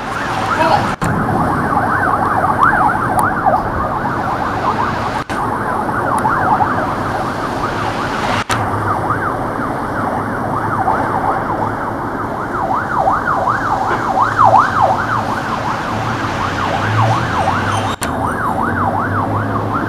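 Several sirens wailing at once, their pitches sweeping up and down and overlapping, over a low rumble. The sound cuts out briefly four times, about 1, 5, 8 and 18 seconds in.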